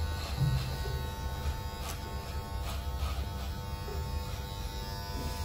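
Electric hair clipper running with a steady buzz as its bare, guardless blade cuts short hair at the back of the head for a fade.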